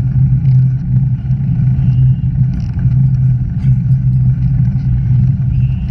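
Steady low rumble of wind and road noise on a bicycle-mounted action camera as the bike rolls along.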